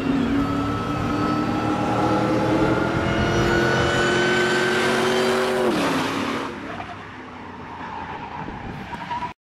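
Supercharged Ford SVT Lightning V8 pickup at full throttle, its engine note climbing slowly through a long pull with a high whine above it. About six seconds in the throttle is lifted and the note drops sharply, then runs quieter until the sound cuts off abruptly near the end.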